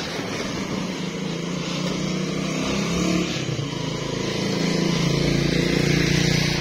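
Motorcycle tricycle engine running steadily as it travels, growing a little louder toward the end.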